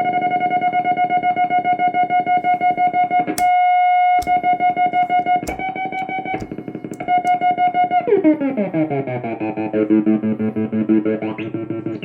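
Stansi noise synth playing a fast pulsing tone at a steady pitch, broken by a few sharp clicks. About eight seconds in, the pitch sweeps down into a lower pulsing drone.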